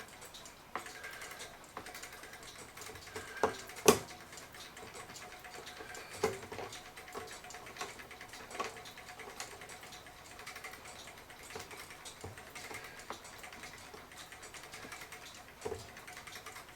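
Scattered light clicks and taps of small hand tools working a taper pin out of a mantel clock, with two louder clicks close together about four seconds in.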